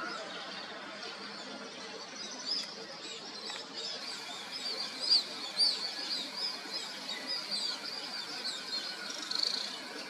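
Many small birds chirping, with short, high calls overlapping. The calling thickens a couple of seconds in and is loudest around the middle.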